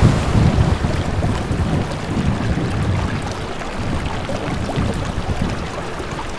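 Wind buffeting the microphone in a low, uneven rumble, over the steady rush of river water.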